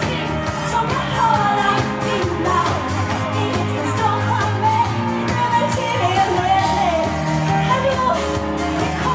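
A woman singing live into a handheld microphone over a loud pop backing track with a steady beat.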